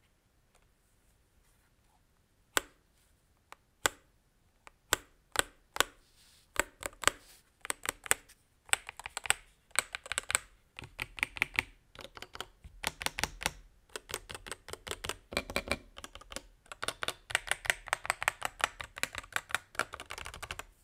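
Typing on a MelGeek Cyber01 mechanical keyboard with Gateron Magnetic White magnetic switches. A few single keystrokes start about two and a half seconds in, then build into steady, fast typing in runs of clacks.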